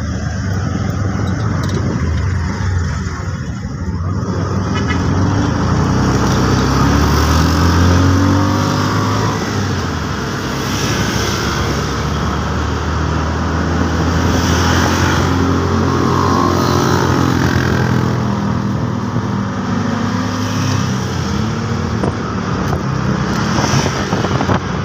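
Riding in an electric tricycle's cabin: steady road and wind noise, with a low hum that slowly rises and falls in pitch.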